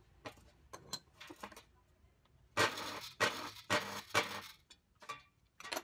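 Metal parts of a small geared-motor bracket clinking and knocking as they are handled and fitted, with a run of about four louder scraping clatters in the middle.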